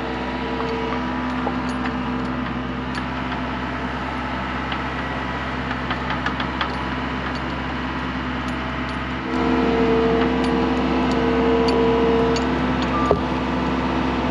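Engine of a loader working fence posts, running steadily with light rattles and clicks. About nine seconds in it gets louder, as if put under load or revved.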